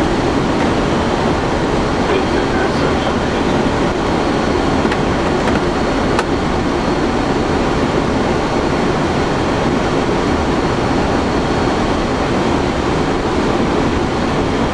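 Steady flight-deck noise of an Airbus A330 on final approach: an even rushing rumble with a faint high whine.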